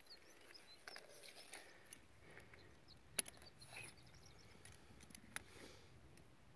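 Faint clicking and scraping of steel hose clamps being fitted and tightened on poly hose over a barbed fitting, with a few sharper metallic clicks about two, three and five seconds in.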